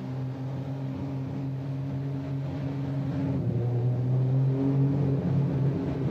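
BMW 328 roadster's two-litre straight-six engine running as the car drives past, a steady low engine note that swells louder about three to four seconds in as it comes close.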